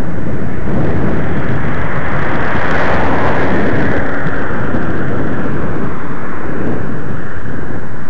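Loud, steady wind rushing over the microphone of a camera carried on a moving bicycle, swelling briefly about three seconds in.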